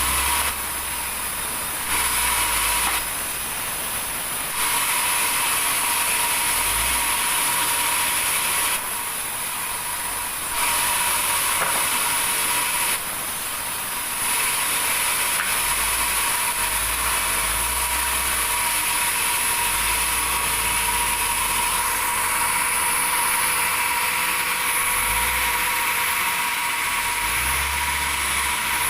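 Sawmill saw running through wood, a steady mechanical whine with a constant high tone, growing louder and quieter in stretches of a few seconds.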